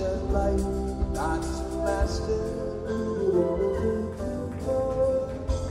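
Live band music heard through an audience recording, with a few sliding notes.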